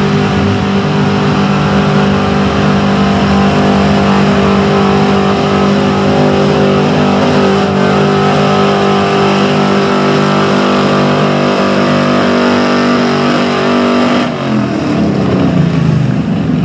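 Dodge pickup's gasoline engine running at high, steady revs under full load, pulling a weight-transfer sled in a truck pull. Near the end the revs fall away.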